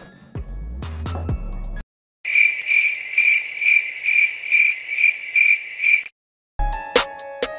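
Cricket chirping sound effect: a high, steady trill pulsing about three times a second, starting and stopping abruptly between brief cuts to dead silence. It is the stock "crickets" gag for an awkward silence. A bass-heavy music sting comes just before it, and drum-led music starts near the end.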